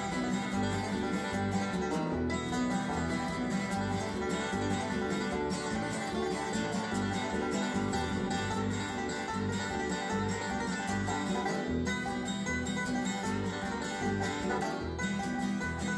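Background music in a bluegrass or country style: plucked guitar and banjo over a steady beat.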